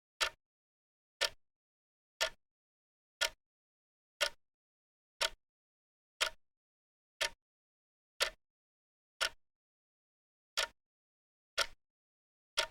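Countdown timer's ticking sound: one sharp, short tick each second, with silence between the ticks.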